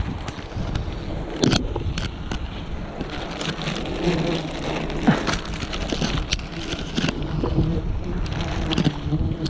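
Wind buffeting the microphone in a steady low rumble, with sharp clicks and knocks several times over.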